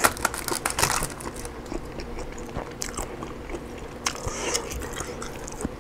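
Close-miked eating of rotisserie chicken: chewing and biting with many small crunchy clicks and crackles.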